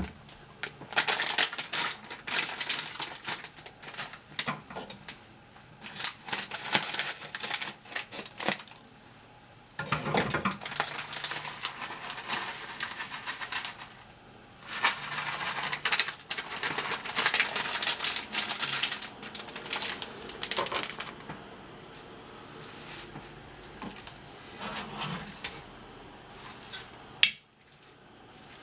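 A metal masher clattering and scraping against a pan in quick bursts with short pauses, as boiled kale and potatoes are mashed and mixed.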